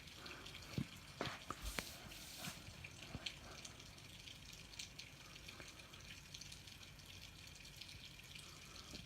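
Faint dripping of rainwater during a storm: scattered, irregular drop ticks over a low hiss, with a few louder ticks in the first three seconds.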